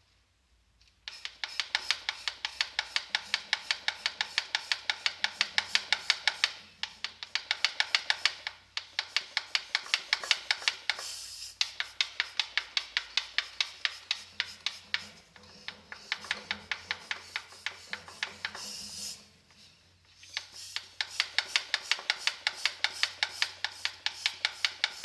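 Saab 9-5 engine running with a sharp, evenly repeating knock, about four or five knocks a second, over the steady engine hum. It drops away briefly a few times. The knock is the fault the owner is showing.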